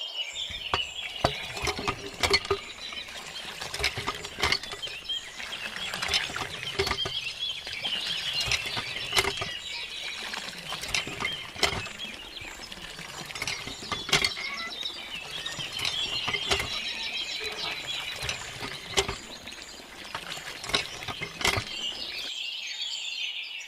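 Irregular small clicks and taps over a faint hiss, with no music.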